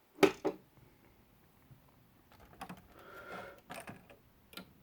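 Small plastic Lego pieces clicking and knocking as they are handled and fitted together: two short clicks at the start, then a quiet stretch, then a scatter of clicks in the second half.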